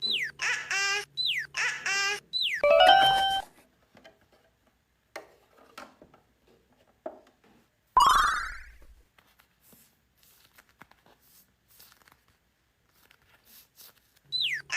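Cartoon sound-effect jingle: quick falling slide-whistle chirps with bubbly notes, then a fast rising run of bell-like notes. About 8 s in comes one rising whoosh with a low thud, and near the end the chirps start again.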